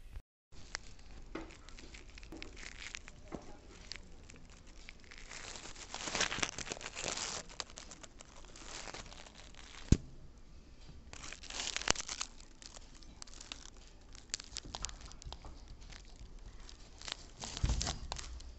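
Dry straw nesting material rustling and crackling in irregular bursts, with scattered clicks and one sharp knock about ten seconds in.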